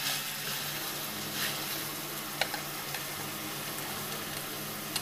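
Pieces of char siu pork sizzling in melted sugar and dark soy-based sauce in a stainless steel pot, stirred with wooden chopsticks that tap the pot sharply a couple of times. A faint steady hum runs underneath.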